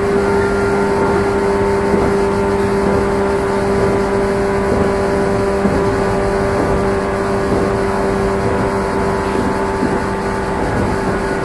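JR 115-series electric train running at a steady speed, heard from inside its motor car KuMoHa 115-320. A steady whine of constant pitch sits over the rumble of the wheels on the rail.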